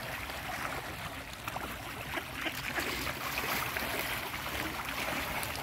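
Water splashing and lapping as mallard ducks and mute swans feed at the surface, with a run of small splashes.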